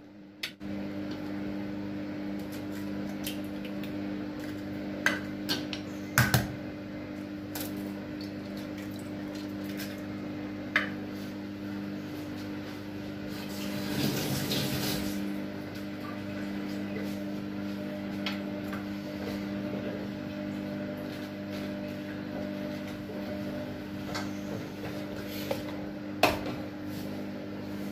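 Eggs knocked and cracked against a glass mixing bowl: a few sharp, scattered clicks over a steady low hum, with a brief rushing noise about halfway through.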